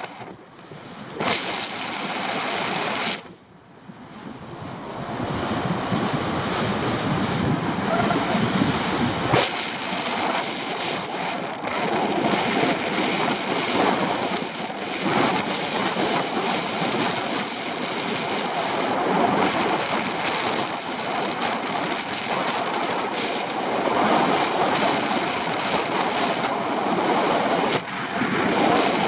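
Wind rushing over the microphone of a camera flying with a paraglider: a steady, rough rush that briefly drops away about three seconds in.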